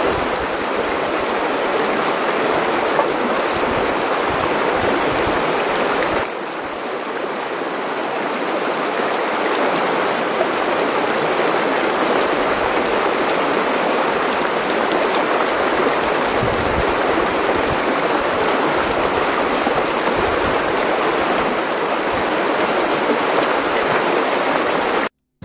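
Shallow mountain stream running over stones and gravel, a steady rush of water. It dips slightly about six seconds in and slowly builds back.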